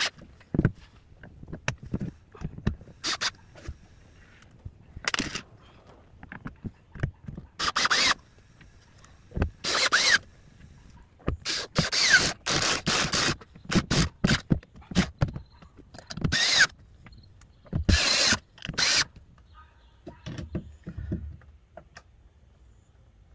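Cordless drill with an 11/64-inch bit, run in repeated short bursts of a second or so as it bores out existing screw holes in a fibreglass boat's gel coat; the bursts stop a few seconds before the end.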